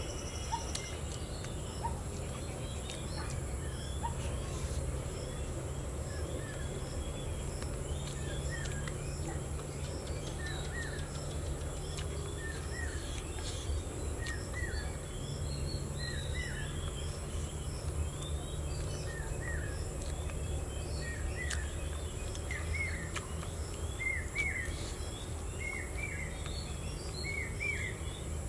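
Rural outdoor ambience: small birds chirping over and over in short hooked notes, more often toward the end, over a steady low rumble and a faint steady high hiss.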